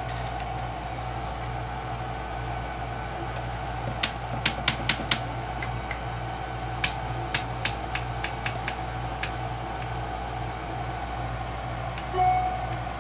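A 3D printer's heated bed and glass plate click and knock as they are pressed and wiggled, rattling in loose bed mounts: a quick run of about five clicks a few seconds in, then a scattered handful. A steady low hum runs underneath, and there is a brief louder sound near the end.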